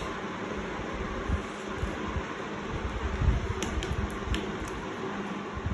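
Steady fan-like whirring, with irregular low thumps and a few faint clicks over it.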